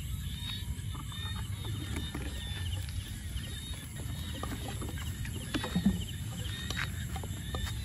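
Rustling and scattered clicks of someone moving through grass with a handheld camera, over a steady low rumble of handling noise, with a short low knock about six seconds in. Faint high chirps sound behind.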